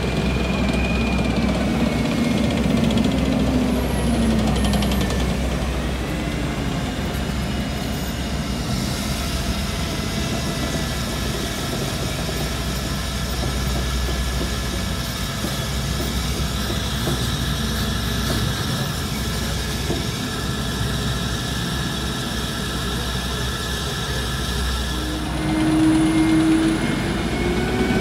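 Main battle tanks driving past one after another on a paved street, their engines running loud and steady. A high, steady whine sits over the engine noise through the middle, and a louder low tone comes in near the end.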